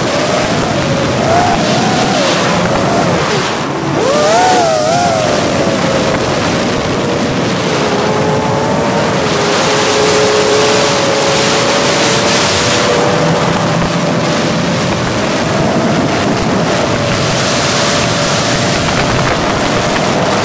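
Brushless motors and propellers of a 5-inch 6S FPV quadcopter (GEPRC Mark4) whining in flight, heard from the drone's onboard camera. The pitch holds mostly steady and rises sharply and wavers briefly about four seconds in as the throttle changes. Rushing wind noise on the microphone runs under it.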